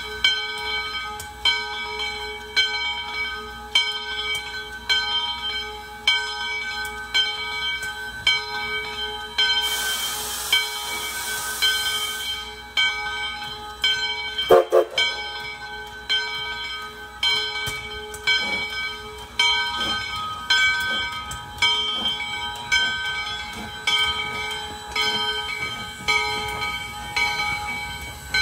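Steam locomotive bell ringing steadily, about three strokes every two seconds, the usual warning that the train is about to move. A burst of steam hiss comes about ten seconds in and lasts a couple of seconds, followed by one short loud blast. Later, faint low exhaust beats start as the ALCO 4-6-2 No. 148 begins to pull away.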